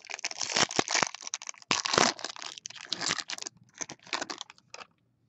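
Foil wrapper of a 2016 Bowman Chrome trading card pack being torn open and crinkled by hand. It crackles continuously for about three and a half seconds, then gives a few short crinkles.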